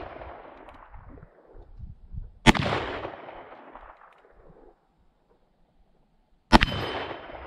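Two shots from a first-generation Colt Single Action Army revolver in .38 Special, about four seconds apart, each followed by a long echo fading over about two seconds. A faint metallic ring of a struck steel target plate lingers after the second shot.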